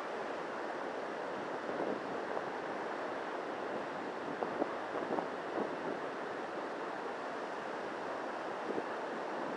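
Surf washing on a beach and wind buffeting the microphone, a steady rushing noise, with a few short louder flutters about halfway through.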